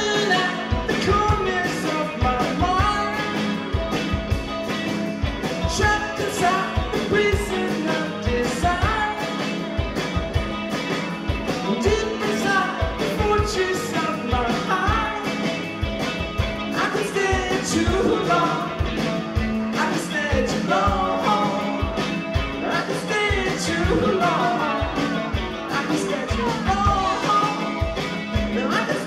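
Live rock music from a guitar-and-drums duo: an electric guitar playing over a drum kit that keeps a steady beat.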